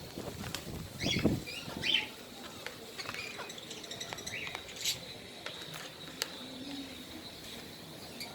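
Ringneck parakeets give short, high chirps a second or two in, among scattered light clicks and rustles. A faint steady high note runs underneath later on.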